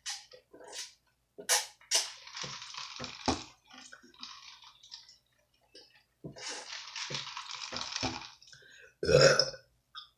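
Close-miked eating noises from a person chewing pizza: a few sharp mouth clicks and two longer stretches of chewing, then one loud burp about nine seconds in.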